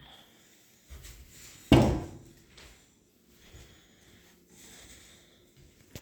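One sharp knock of the rifle's wood and metal parts being handled during dismantling, with fainter knocks and handling noises before and after it.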